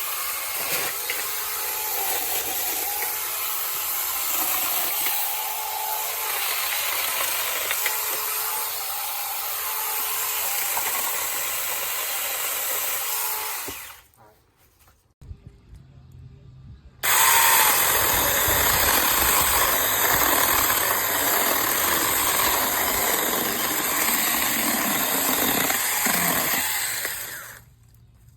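Cordless battery-powered 6-inch mini chainsaw running in two long spells, with a stop of about three seconds roughly halfway and a sudden cut-off near the end.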